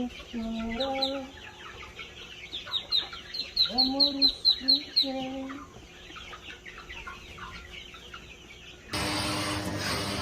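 A hen clucking in low calls while chicks peep in quick, high, falling chirps, loudest about three to five seconds in. About nine seconds in this gives way abruptly to a steady hiss-like noise.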